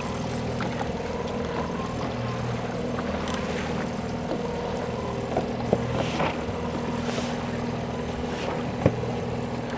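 Boat's outboard motor running steadily at trolling speed, a low, even hum. A few short knocks come about halfway through, and a sharper one near the end.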